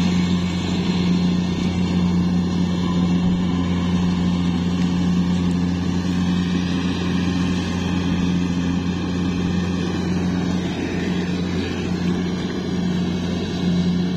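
Kubota DC70 Plus combine harvester's diesel engine running steadily at high throttle, a constant even hum.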